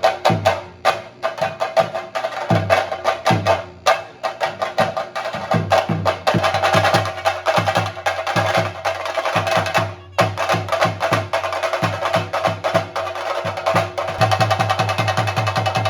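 Chenda drums played with sticks in a fast, dense rhythm, with cymbals ringing over them: the percussion that accompanies a Theyyam ritual. The beat thins out briefly twice before picking up again.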